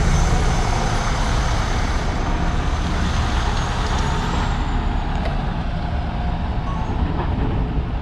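Large coach bus driving away, its engine running loud close by and easing off gradually as it pulls off.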